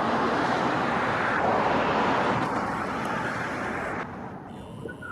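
Road traffic noise from a car passing on the street, a steady rush of tyre and engine sound that drops away sharply about four seconds in.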